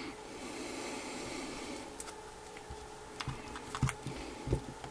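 Metal tweezers scraping, clicking and tapping against the edge of an iPhone 3GS where the front screen meets the case. There is faint scraping at first, then scattered clicks from about two seconds in, with two louder knocks near the end, over a faint steady hum.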